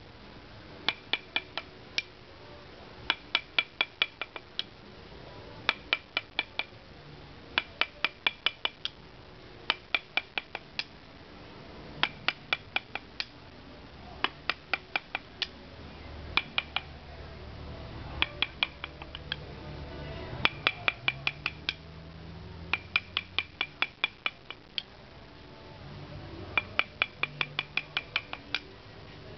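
A wooden mallet tapping a small carving chisel into a wooden mask to cut letters. The taps come in quick runs of about five to eight sharp, slightly ringing taps, one run every second or two.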